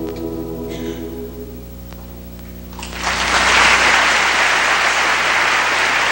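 A choir's final chord is held, then fades; about three seconds in, an audience breaks into loud applause.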